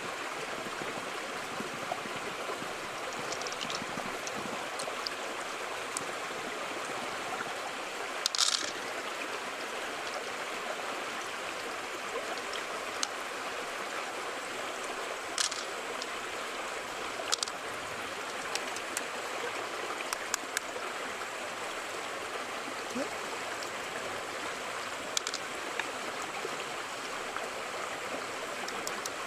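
Steady rush of running stream water, with a few short sharp clicks from handling the opened mussel, the loudest about eight seconds in.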